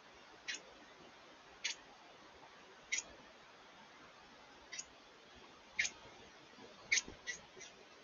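Small songbird giving short, sharp chip notes, about eight of them at irregular intervals, the last three in quick succession near the end.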